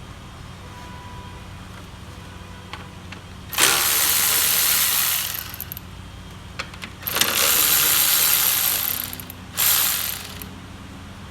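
Power tool running in three bursts, two of about two seconds and a short one near the end, backing out the 10 mm bolts that hold the condenser fan.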